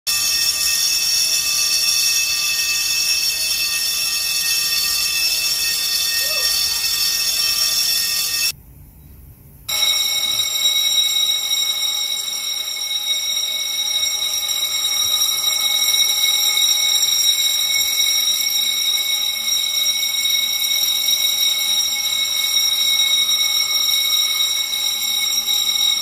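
Fire alarm bell ringing continuously, a steady clangour of high ringing tones, broken by one brief cut about nine seconds in.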